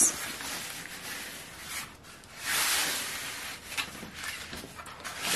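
Hand rubbing and smoothing a freshly unrolled diamond painting canvas on a table: soft rustling, loudest for about a second around two and a half seconds in, with a few light taps.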